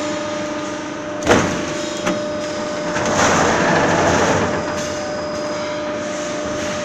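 Roll forming machine running with a steady motor and drive hum as a formed sheet-metal panel feeds through the roller stands. A sharp metal clank comes about a second in, with a lighter knock just after, and a louder rushing noise rises for about a second and a half around the middle.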